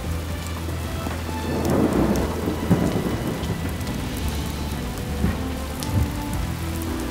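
Heavy rain falling steadily, with a rumble of thunder swelling about two seconds in.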